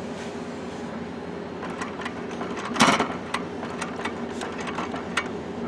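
Canon inkjet printer running its internal mechanism during a processing cycle: a steady motor hum with scattered clicks, and one louder knock about three seconds in.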